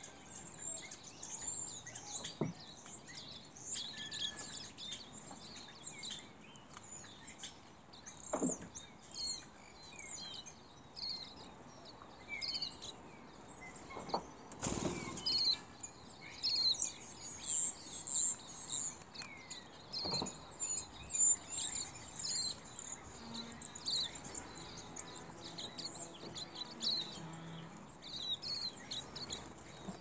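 Many small songbirds chirping and twittering, a dense stream of short high-pitched calls. A brief whoosh comes about halfway through, and a few soft knocks fall here and there.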